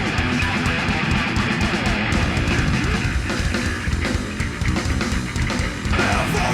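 Three-piece heavy rock band playing a fast song live: distorted electric guitar, bass guitar and a drum kit.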